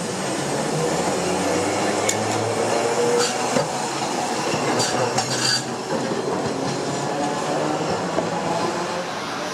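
Toyohashi Railroad streetcar rolling past at low speed: steady running noise of steel wheels on rail, loudest as it passes, with a few sharp metallic clinks about two to three seconds in and again around five seconds.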